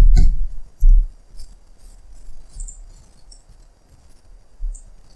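Two low thumps at the start and about a second in, then scattered faint, short clicks of a computer mouse being clicked and moved.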